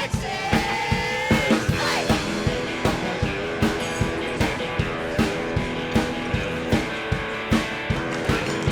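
Music with electric guitar and a steady rock drum beat.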